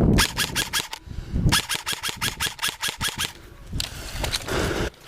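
Airsoft gun firing two quick strings of shots: a short burst right at the start, then a longer run of about a dozen even cracks at around seven a second lasting nearly two seconds.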